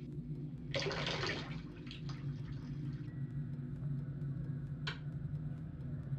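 Water rushing from a chrome mixer tap, starting suddenly about a second in and dying away within about two seconds, over a steady low hum.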